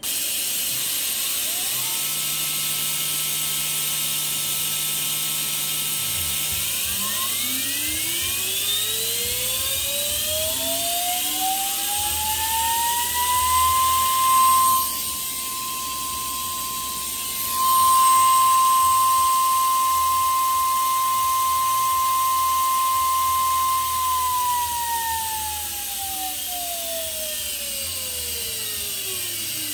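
Alfred Jäger high-speed electric motor spindle on its first startup. Its whine climbs smoothly in pitch as it spins up, holds one steady high tone at full speed for about ten seconds, then glides back down as it spins down. A steady hiss runs underneath.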